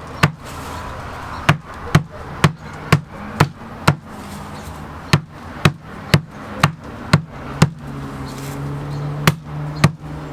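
A 6-pound sledgehammer repeatedly striking a thick wad of folded paper to flatten the fold, about two blows a second, with brief pauses between runs of strikes.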